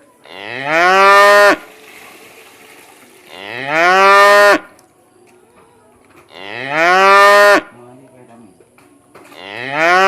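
Cow mooing four times, about every three seconds. Each loud call rises in pitch and then holds steady for about a second.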